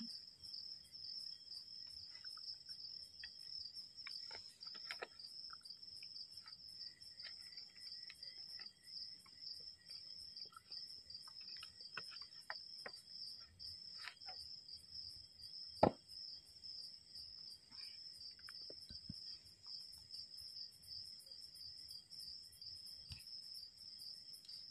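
Crickets trilling steadily at one high pitch, with a few faint scattered clicks and one sharp tap about sixteen seconds in.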